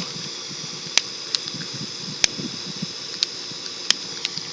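A lighter being clicked again and again without catching, with sharp clicks at uneven spacing about once a second over a steady hiss.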